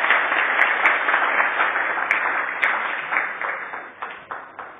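Audience applauding, dying down near the end to a few scattered claps.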